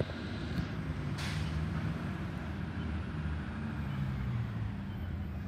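Engine of a Mack recycling truck running as the truck creeps closer, a steady low rumble that shifts in pitch a little. A short hiss of air, typical of the truck's air brakes, comes about a second in.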